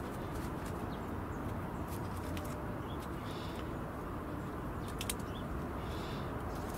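Steady low background noise, with a few soft clicks and rustles as tulip bulbs are set into soil in a plastic pot.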